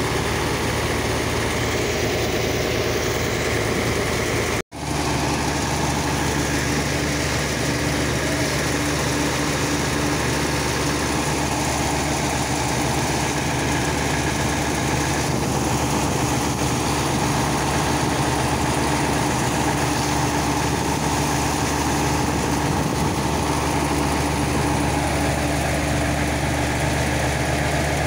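Large Japanese-made diesel engine running steadily at a constant speed, driving a sand-dredging pump, with the rush of sand-and-water slurry pouring from the discharge pipe. The sound cuts out for an instant about four and a half seconds in.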